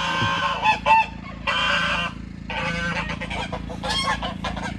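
Goose honking, about four loud calls in a row, the first the longest, over a faint steady low hum.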